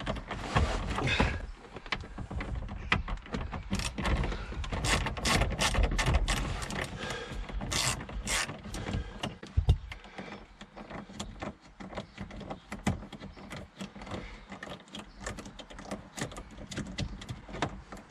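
Ratchet driver clicking in quick runs as T20 Torx screws are backed out of a plastic footwell kick-panel trim, with handling knocks. The clicking is dense in the first half and sparser later, with one sharp knock near ten seconds in.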